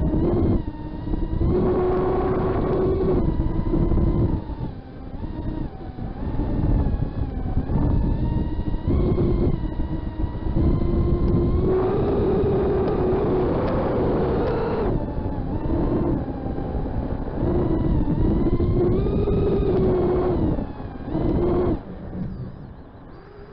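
FPV quadcopter's brushless motors and propellers whining, the pitch rising and falling with the throttle. The throttle is chopped briefly about four seconds in and again near the end.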